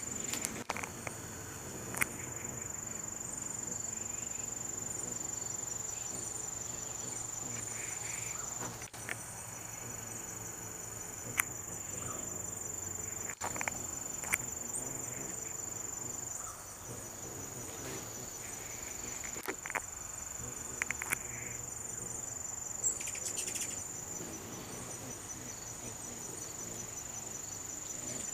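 Insects trilling steadily in a high, continuous chorus, with a few short sharp ticks scattered through.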